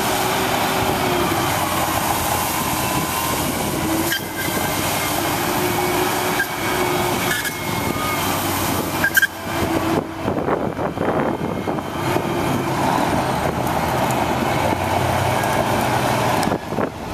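1998 International water truck running with its spray system on: a steady rushing hiss of water from the front spray bar over the engine and pump. About ten seconds in the hiss stops and the truck's engine runs on alone.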